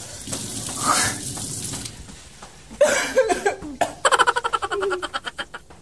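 Laughter in a rapid run of short pulses in the second half, with gasps and vocal sounds, over the splash of water running from a tap in the first couple of seconds.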